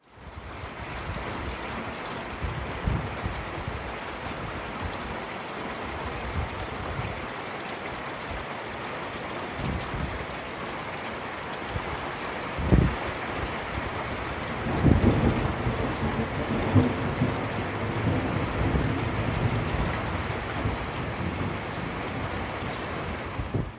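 Thunderstorm: steady rain hiss, with low rumbles of thunder a few seconds in and around ten seconds, a sharp thunderclap a little after halfway, then a longer rumble of thunder lasting a few seconds.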